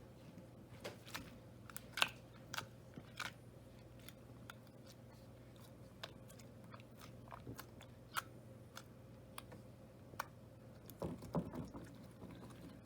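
Slime being squeezed and stretched by hand, giving irregular sharp clicks and pops, loudest about two seconds in, with a cluster near the end.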